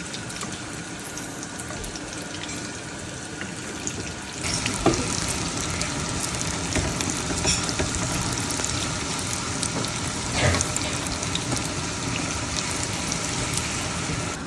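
Baursak dough deep-frying in hot oil: a steady sizzle with scattered crackles that grows louder about four seconds in.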